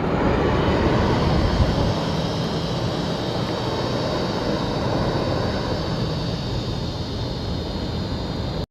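US Navy MH-53E Sea Dragon helicopter flying away, its steady engine and rotor noise slowly fading. The sound cuts off abruptly near the end.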